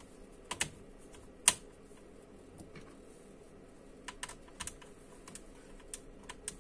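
Scattered sharp plastic clicks and taps from hands working on a laptop, with one louder knock about a second and a half in and a quick run of small clicks near the end.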